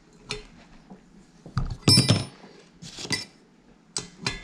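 A series of sharp metal-on-metal clinks and clanks with a short ring, the loudest about two seconds in. They come from a wrench and a homemade puller (threaded rod, nut and deep well socket) being worked to draw a rocker arm spindle out of a Norton Commando cylinder head.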